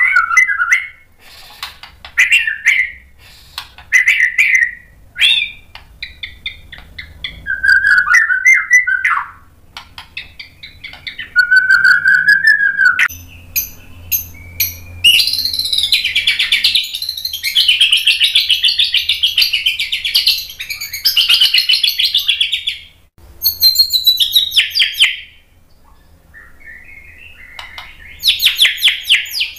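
White-rumped shama singing in full voice, running through its repertoire: separate whistled phrases for the first dozen seconds, then a long run of rapid notes for about ten seconds. A short lull follows, and another rapid run comes near the end.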